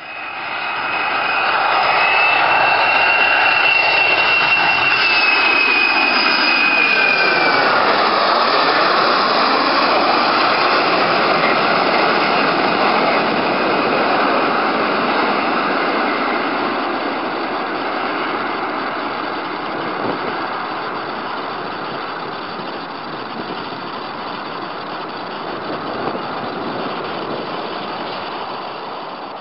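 Airbus A320 jet airliner on final approach passing low overhead: a high engine whine that drops in pitch as it goes over, then a steady jet rumble that slowly fades as it flies on toward the runway.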